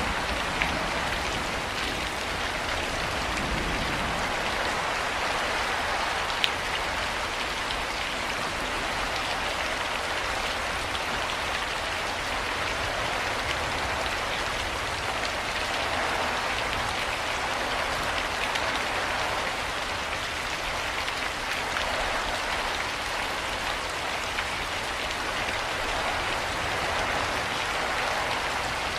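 Steady heavy rain falling on a surface, an even hiss with a few sharper drop ticks now and then.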